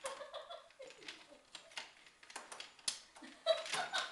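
Wooden lattice baby gate rattling and clicking under a cat's claws as it climbs up it, an irregular run of sharp knocks that is loudest near the end. Short voice-like sounds come in near the start and again near the end.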